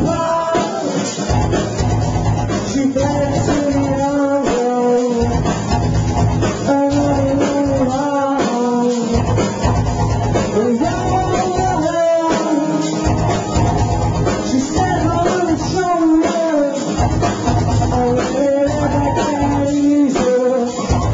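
A rock band playing a song, recorded on a pocket camcorder: guitar and drum kit with a singing voice carrying the melody.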